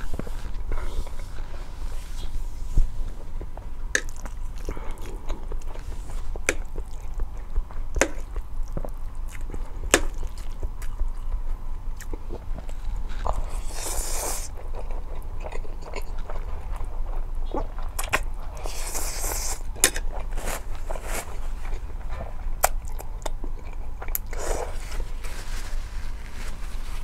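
Close-miked mukbang eating of spicy ramen noodles and boiled eggs: wet chewing and lip smacks with many scattered clicks, and two longer breathy, hissing stretches about halfway through and a few seconds later.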